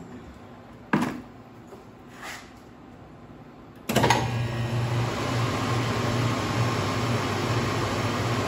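A knock about a second in, then about four seconds in a Taylor 794 soft serve machine starts up as its draw handle is pulled, running with a steady low hum and whir while it dispenses soft serve into a cone.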